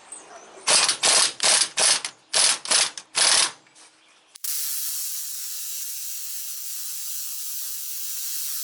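Air impact wrench hammering in about seven short bursts as it drives the U-joint press screw, followed by a steady hiss that starts suddenly about four seconds in.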